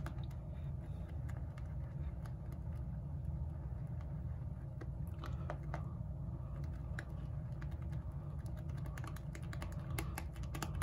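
Boar-bristle shaving brush whipping thick shaving-soap lather in a glass bowl: a steady swishing with many small wet clicks and crackles, which come thickest near the end. A low steady hum runs underneath.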